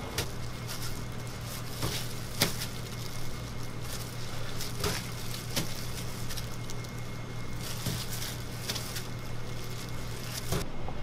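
Chef's knife cutting raw chicken thigh on a plastic cutting board: about eight sharp knocks of the blade against the board, the loudest about two and a half seconds in, over a steady low hum.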